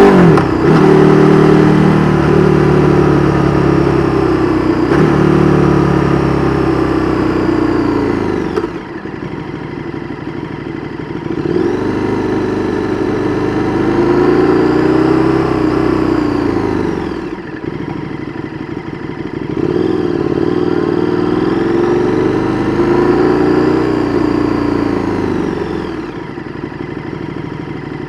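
2022 KTM 1290 Super Duke R Evo's V-twin engine running through an Austin Racing V3 Mini exhaust on the move. The engine note repeatedly falls away and builds back up, about three times, as the throttle is rolled off and on.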